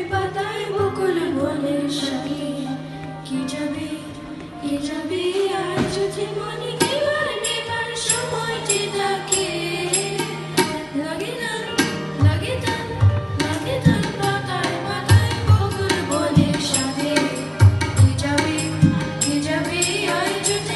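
Live Bengali song with harmonium and keyboard accompaniment under a female vocal melody; deep drum beats join in about twelve seconds in and keep a steady rhythm.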